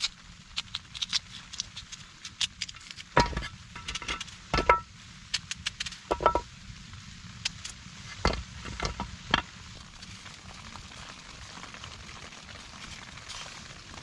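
A knife cutting a block of cheese on a wooden board: a scatter of sharp knocks and short metallic clinks, most of them between about three and nine seconds in, over a faint steady hiss.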